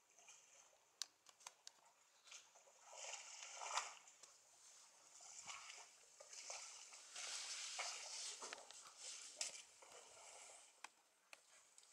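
Faint splashing and sloshing of water from elephants drinking at a waterhole, coming in a few swells, the loudest about four seconds in, with scattered sharp clicks.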